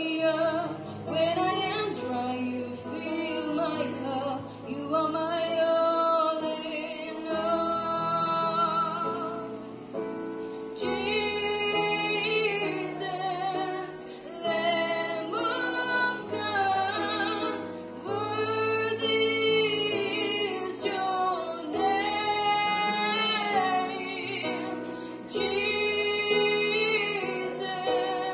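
A woman sings a slow Christian worship song solo into a microphone, holding long notes, over an accompaniment of sustained low bass notes.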